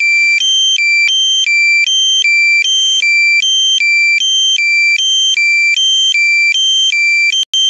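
A drone controller's critical low-battery alarm: a loud two-tone beeping that switches between a lower and a higher pitch about three times a second. It warns that the aircraft's battery is critically low and the drone is about to land itself.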